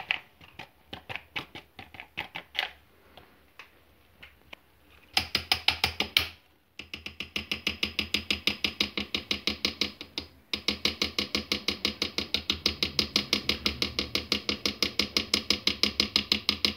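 Cocoa powder being sifted through a metal kitchen sieve: a fast, even run of ringing metallic clicks, about eight a second, with two short breaks, after a few scattered taps at the start.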